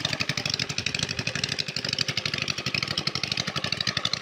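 Small engine running steadily at an even speed, with a rapid, regular chugging.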